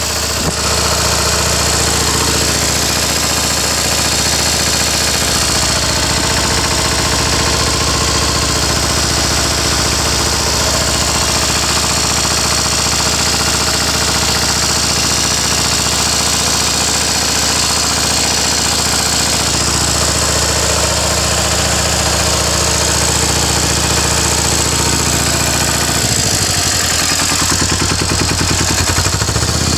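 Deutz F2L410 two-cylinder air-cooled diesel engine running steadily on a test stand. Its speed shifts in the last few seconds.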